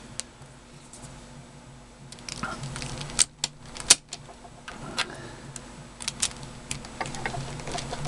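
Hard plastic pieces of a 3x3 speedcube clicking and snapping as loose edge and corner pieces are pressed back into the partly taken-apart cube. The clicks come singly, about one a second, from about three seconds in.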